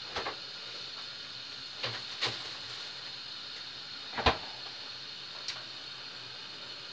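A few scattered knocks and clunks of kitchen things being put away, the loudest about four seconds in, over a steady low hiss.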